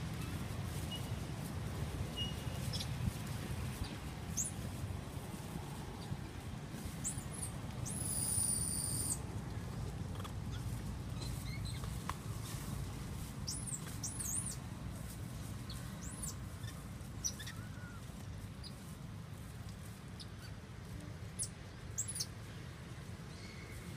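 Scattered short, high-pitched animal chirps and squeaks, with a quick pair of arching calls about halfway through, over a steady low rumble.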